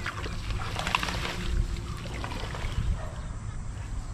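Wind rumbling on the microphone, with scattered rustles and clicks from dense lakeside weeds being trampled as an angler plays a hooked fish on a rod.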